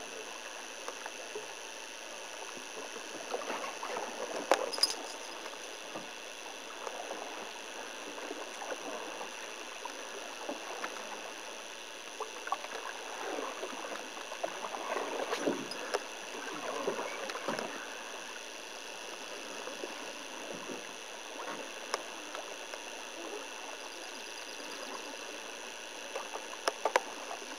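Canoe being paddled on calm water: soft, irregular splashes and drips of paddle strokes and water at the hull, with a few sharp knocks, over a steady hiss.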